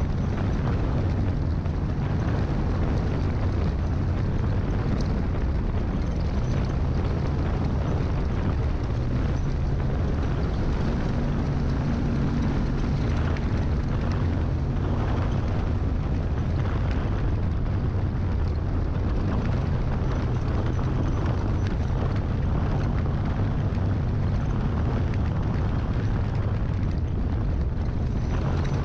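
Jeep Comanche race truck's engine running steadily at speed, about 40 mph over a dirt trail, buried in heavy wind and road rumble on the hood-mounted camera's microphone.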